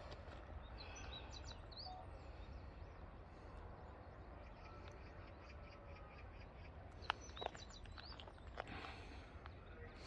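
Faint outdoor ambience: a steady low rumble of wind on the microphone, with small birds chirping briefly about a second in. Two sharp clicks stand out about seven seconds in, the loudest sounds here.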